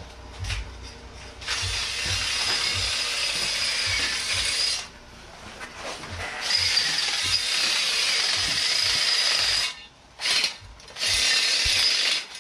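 Cordless power tool with a bit cutting into the steel flexplate, enlarging its bolt holes for an LS engine swap. It runs in three stretches of a few seconds each, with short pauses between them, and the runs get shorter near the end.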